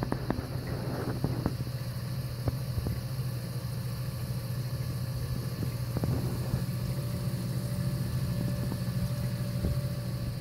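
Reef aquarium sump equipment running: the protein skimmer's and return pumps' steady low hum, with a faint steady higher tone. Occasional light ticks come through, most of them in the first couple of seconds.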